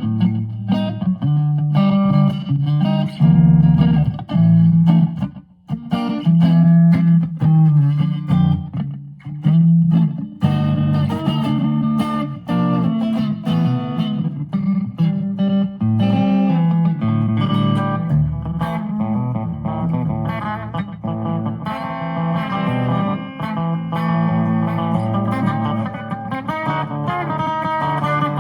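Electric guitar played with a clean, twangy country tone, picking quick single-note runs and chords, with a short pause about five and a half seconds in.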